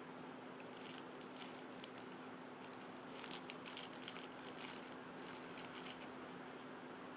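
A baby's hands pawing at and pulling the pages of a soft cloth baby book, giving short bursts of scratchy rustling about a second in and again from about three to five seconds in, over a steady faint hum.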